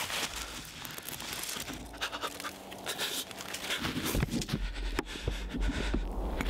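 Footsteps crunching through snow with clothing rustling and hard breathing as a person walks up close. From about four seconds in, a low rumble as the clothing brushes right past the microphone.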